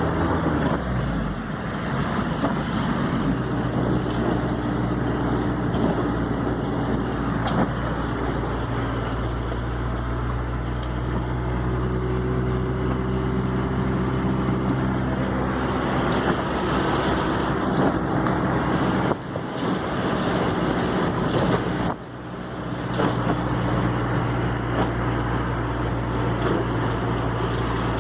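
Car driving: a steady engine hum under road noise, dropping away sharply for a moment twice, about 19 and 22 seconds in.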